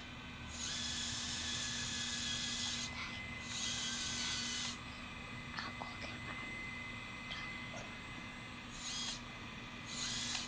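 1/14-scale RC hydraulic excavator's pump running with a steady whine. It is overlaid by bursts of higher hissing whine as the hydraulics drive the boom and arm: two longer bursts in the first half and two short ones near the end.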